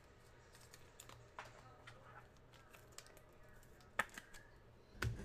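Faint, scattered light clicks and taps of hands working at a tabletop, with a sharper click about four seconds in and a soft thump at the very end.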